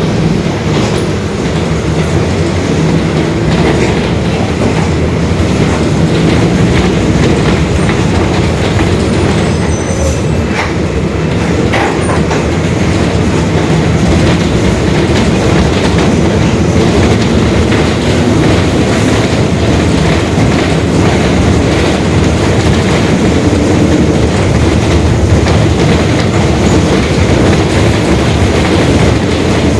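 Mercedes-Benz OF-1721 Bluetec 5 city bus under way: the diesel engine and drivetrain run steadily, with the differential growling, and scattered clicks and rattles.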